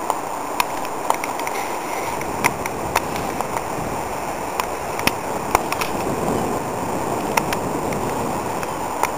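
Steady rushing of strong wind blowing across the microphone, with scattered sharp clicks.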